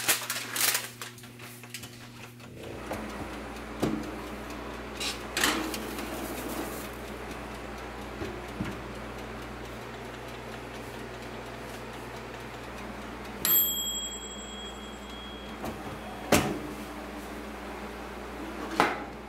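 Oster countertop toaster oven running with a steady hum, with a few knocks in the first seconds. Its timer bell rings once about two-thirds of the way through, and near the end the oven door and pan clank as the vegetables are taken out.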